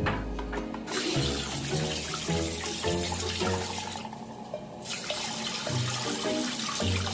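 Water hissing and splashing in a toilet bowl as a plastic scoop is worked through it, with a brief break about four seconds in. Background music with plucked notes and a bass line plays underneath.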